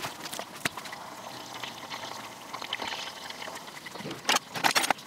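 Hot oil sizzling and bubbling around bacon-wrapped sardines deep frying in a small saucepan, crackling steadily, with a quick cluster of louder cracks near the end.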